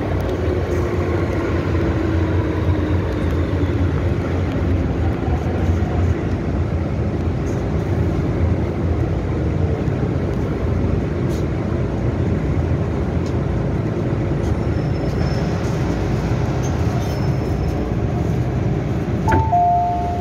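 Hong Kong MTR Tsuen Wan line M-train running through an underground station, a steady rumble with a whine that falls in pitch over the first few seconds. A two-note falling chime sounds near the end.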